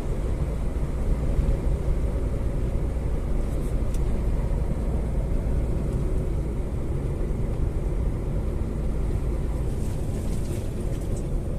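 Steady low engine and road rumble heard from inside the cab of a vehicle on the move.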